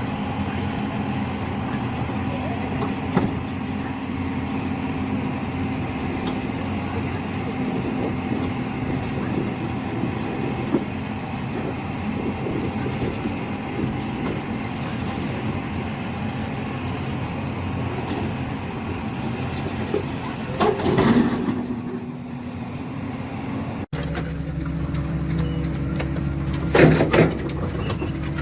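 Heavy diesel engine of construction machinery running steadily under load, with scattered knocks and clanks of metal. After a sudden cut near the end, a louder engine takes over with several sharp bangs.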